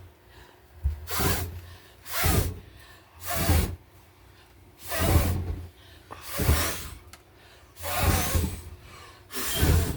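Repeated puffs of breath close to the microphone, about seven of them, each about half a second long, coming roughly every second and a half.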